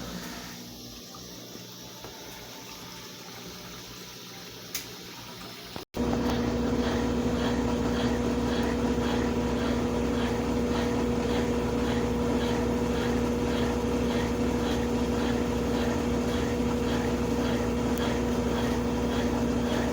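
Consul CWS 12 washing machine running: first a quiet water noise, then, after a sudden jump about six seconds in, a much louder steady motor hum with a light regular ticking about twice a second.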